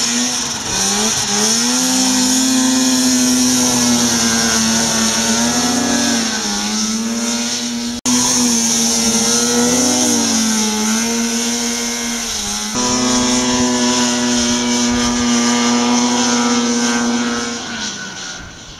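Two-stroke snowmobile engine running hard at high revs under load, its pitch dipping and rising with the throttle. The sound breaks off abruptly about eight seconds in and changes again near thirteen seconds, where the clips are cut together.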